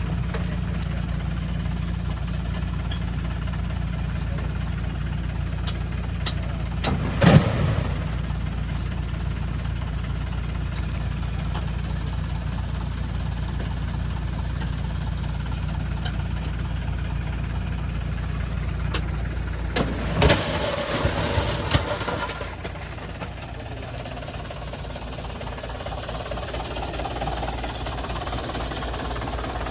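Heavy machine's diesel engine running steadily, with a sharp knock about seven seconds in and a louder rush of noise around twenty seconds, after which the engine runs quieter.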